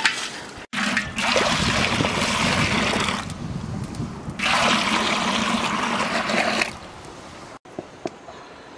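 Water pouring or gushing in two bursts of about two seconds each.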